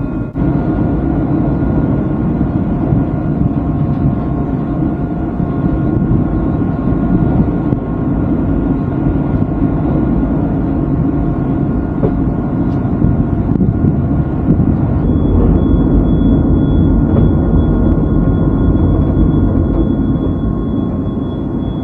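Steady engine drone with several held tones. About fifteen seconds in, a high steady whine joins and the low rumble grows heavier.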